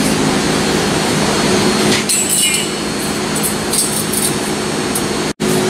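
A steel band saw blade rattling and clinking as it is twisted and folded into coils by hand, the clinks coming in irregular bursts from about two seconds in, over a steady low hum.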